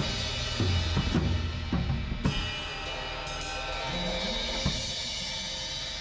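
Acoustic drum kit being played: a driving pattern of kick drum and snare hits, then a cymbal crash about two seconds in that is left ringing, with only a few scattered hits under the cymbal wash.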